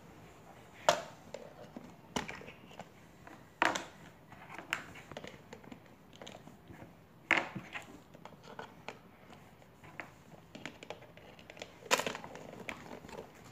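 Plastic Mr. Potato Head parts being pushed into the hollow potato bodies and handled on a tabletop: irregular sharp clicks and knocks, a handful of louder ones among smaller rattles.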